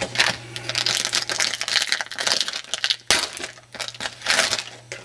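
Trading cards being handled and flipped through, with quick papery clicks and swishes of card stock sliding against card stock, and a sharper snap about three seconds in. A faint steady electrical hum sits underneath.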